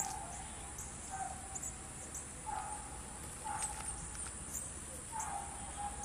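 Outdoor wildlife ambience: insects keep up a steady high-pitched trill, while a short, slightly falling call repeats about once a second, with faint high bird chirps among it.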